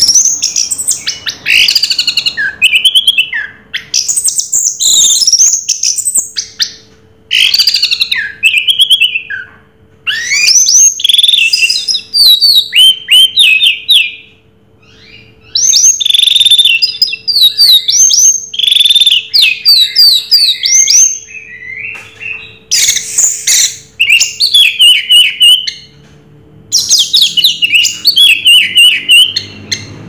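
Orange-headed thrush (anis merah) singing loudly in long, fast runs of varied whistled and chattering notes, the continuous 'teler' style of song. The runs break off briefly about halfway through and again near the end.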